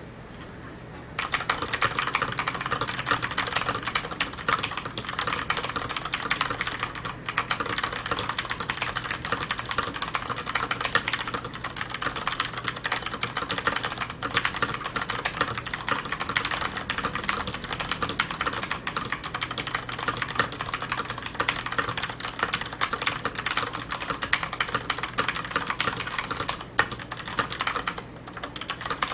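Continuous fast typing on a FILCO mechanical keyboard with Cherry MX switches and Signature Plastics PBT DSA keycaps: a dense run of keystroke clicks that starts about a second in, with a brief lull near the end.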